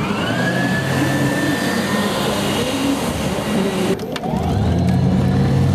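Electric drive motor of a converted Glastron Bayflite V174 speedboat spinning up under throttle: a rising whine that levels off into a steady high tone over a low hum. About four seconds in it changes abruptly to a louder, lower steady drone from the motor and hull running at speed.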